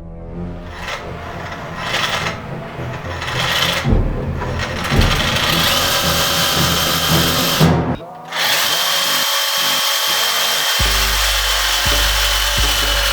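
Power saw cutting through a steel camshaft, running steadily, with a brief stop about eight seconds in before it cuts on.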